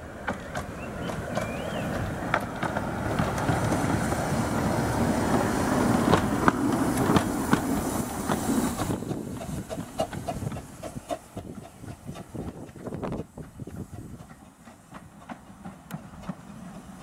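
15-inch gauge steam locomotive No. 2 'Northern Chief' moving slowly past close by, its wheels clicking over rail joints. The louder running noise drops away about nine seconds in, leaving scattered clicks.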